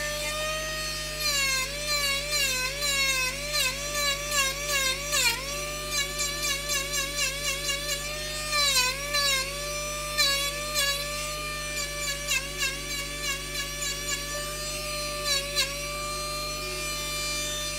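Handheld high-speed rotary carving tool running with a steady whine while it grinds wood, its pitch sagging briefly and repeatedly each time the bit is pressed into the carving.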